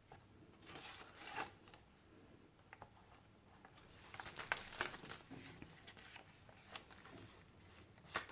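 Faint rustling and soft crinkling of paper as journal pages and a paper booklet are turned and handled, busiest about four to five seconds in.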